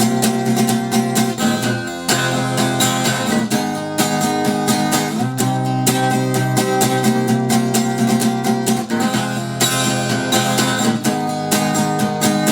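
Acoustic guitar strummed in a steady rhythm, played live as an instrumental passage.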